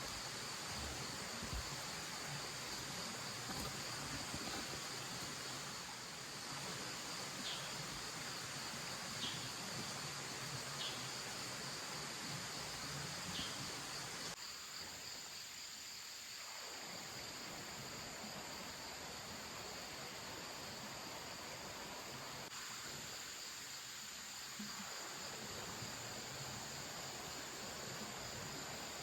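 Autumn insects, crickets, trilling steadily over the even rush of a mountain stream, with a few short high chirps in the first half.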